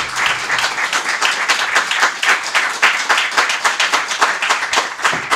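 Audience applauding, with many hands clapping in a dense, even patter.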